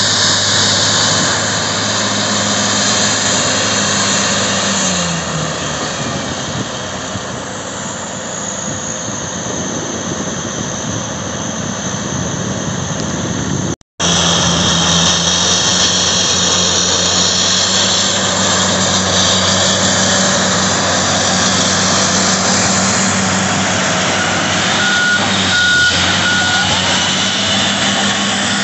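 Caterpillar D10N bulldozer's diesel engine running hard as the dozer pushes dirt, a steady heavy drone whose pitch sags briefly about five seconds in. The sound cuts out for an instant about halfway, and a short high tone sounds twice near the end.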